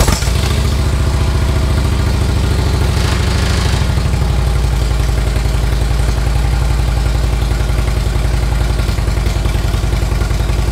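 2011 Harley-Davidson Street Glide's Twin Cam V-twin firing up on its first start with freshly fitted S&S Power Tune dual headers and slip-on mufflers. It catches right at the start and settles into a steady, even idle.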